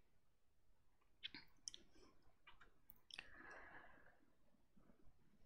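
Near silence: room tone with a few faint clicks, about a second in and again about three seconds in, followed by a soft brief hiss.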